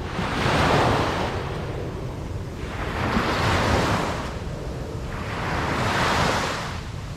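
Ocean waves breaking and washing up a beach, swelling three times over a steady low rumble.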